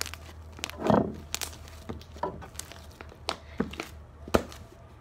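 Sticky fluffy slime being kneaded and stretched by hand, giving irregular short squishy pops and clicks, about six of them, over a steady low hum.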